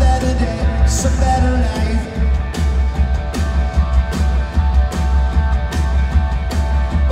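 Live rock band playing loud, with electric guitars, bass and a drum kit keeping a steady beat; the bass dominates heavily, as heard from the crowd.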